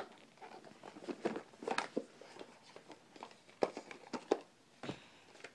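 A small white box being handled and turned over in the hands: scattered light taps, knocks and rustles.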